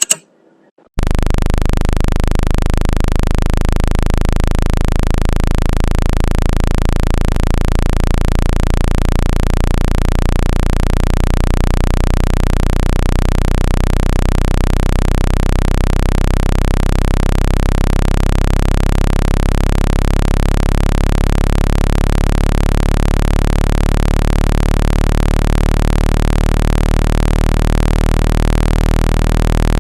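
Loud electronic low-pitched tone, built of many steady pitches with a slight pulsing, played to vibrate water out of a phone speaker. It starts about a second in, after a short click.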